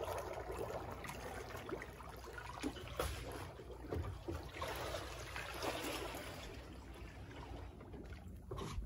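Calm sea water lapping and trickling around a catamaran's hull, with a few soft irregular splashes.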